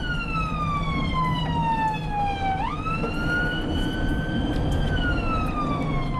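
Ambulance siren on a slow wail, sounding on an emergency call: the pitch glides down for about two and a half seconds, sweeps quickly back up, holds, then starts falling again. A steady rumble from the moving vehicle runs underneath.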